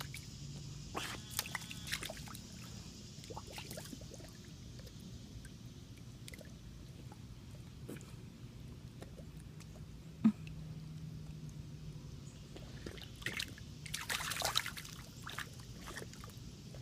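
A Bullmastiff puppy splashing and sloshing in puddle water, with scattered small splashes and drips and a busier burst of splashing near the end. A single sharp knock about ten seconds in.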